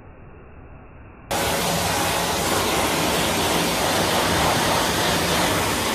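High-velocity dog grooming dryer blowing air through its hose and nozzle into a dog's coat: a steady rushing noise, duller and quieter for about the first second, then suddenly loud and even.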